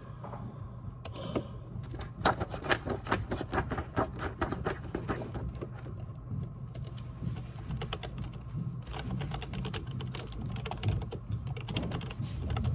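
Typing on a computer keyboard: a quick, steady run of key clicks that thickens about two seconds in.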